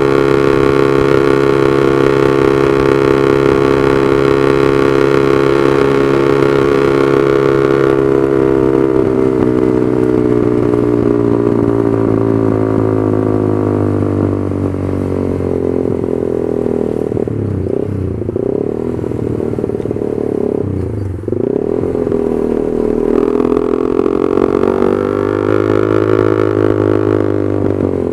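Honda CB150R's single-cylinder engine heard through a very loud Proliner aftermarket exhaust while riding: revs held steady, then falling away, two short dips around the middle, then climbing again near the end.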